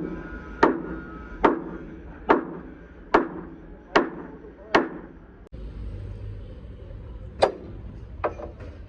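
Hammer blows on metal, evenly spaced about one every 0.8 seconds, each ringing briefly. The strikes stop about halfway through, and after an abrupt change in the background two more single strikes follow, the second fainter.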